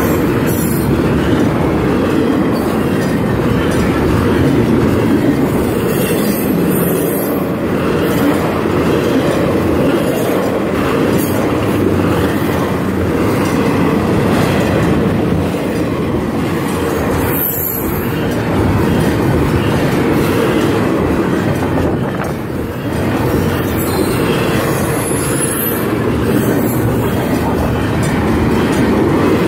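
CN double-stack intermodal container train rolling past close by: a loud, steady rumble and clatter of the cars' wheels on the rails, with brief high wheel squeals a few times.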